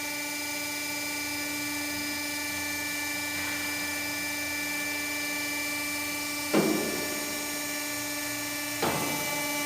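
Imet KTech-802-F6000 double-column CNC band saw machine running with a steady, multi-tone mechanical hum. Two short, louder sounds break in, about six and a half seconds in and again near the end.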